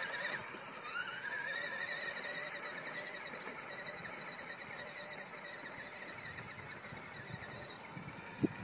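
Electric motor and gearbox of a child's battery-powered ride-on toy sportbike whining, the pitch gliding up about a second in as it picks up speed, then growing fainter as the bike moves away. A short click near the end.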